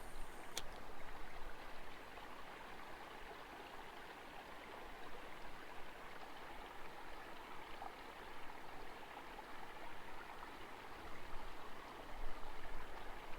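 A small creek flowing, a steady rush of running water. There is one brief click about half a second in.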